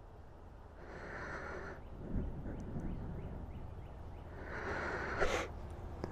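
Two breaths out close to the microphone, a short one about a second in and a stronger one near five seconds, over a steady low rumble.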